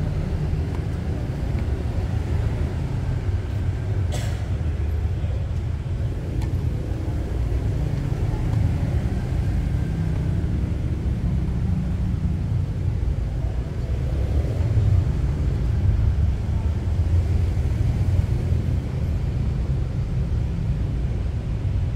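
Steady low rumble, with a tennis ball struck by a racket: a sharp pop about four seconds in and a fainter one a few seconds later.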